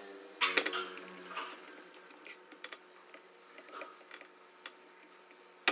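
Handling noises while a clothes iron's metal soleplate is cleaned: a loud clatter about half a second in, then a cloth rubbing over the soleplate with scattered light clicks and taps, and a sharp click near the end.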